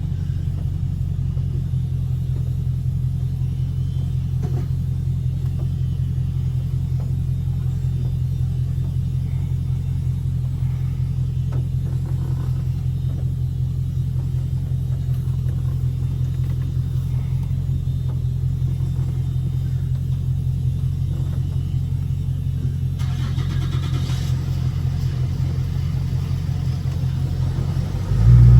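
Dodge Scat Pack's 392 HEMI V8 running steadily with an even low drone, without revving. A faint hiss joins about five seconds before the end.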